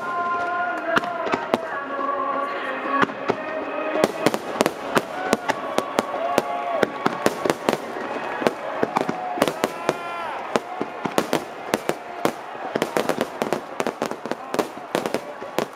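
Fireworks display: dense, rapid bangs and crackling bursts that come faster and thicker from about four seconds in. A song over loudspeakers plays under the opening seconds, then drops away beneath the explosions.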